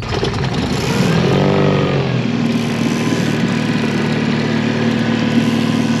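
Tohatsu outboard motor running: its pitch shifts up and down over the first two seconds as the throttle is worked, then it settles to a steady speed.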